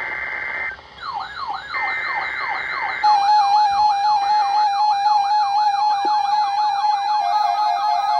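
Emergency alert tones: bursts of the SAME header's warbling two-pitch data tones, joined about a second in by an electronic wailing siren that sweeps up and down about twice a second. About three seconds in, a louder steady electronic alert tone comes in and steps down in pitch near the end.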